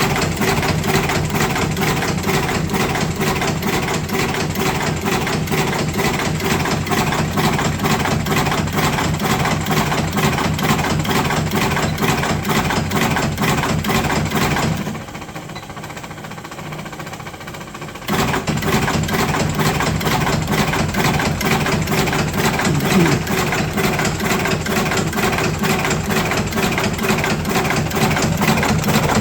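Electric cigarette-rolling machine running, its motor and filling mechanism clattering in a fast, even rhythm of several strokes a second. About halfway through it drops away for roughly three seconds, then starts up again.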